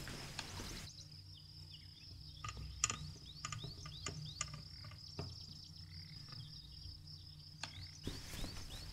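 Countryside nature ambience: a steady high insect trill with a quick run of short falling bird chirps and a few sharp clicks over a low rumble.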